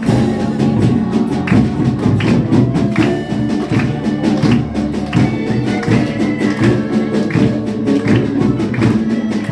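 An orchestra playing live, dense instrumental music over a steady percussive beat.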